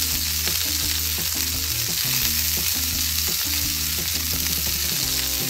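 Frying sizzle sound effect, a steady hiss dubbed over toy cooking, with light background music beneath it.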